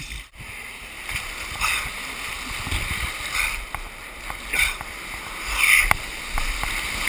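Whitewater rapids rushing and splashing close up, with brief splashes and knocks throughout, loudest near six seconds in.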